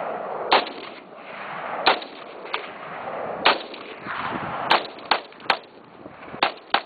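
AR-15 rifle fired semi-automatically: about nine sharp shots at uneven intervals, each with a short ringing tail, several coming in quick pairs in the second half.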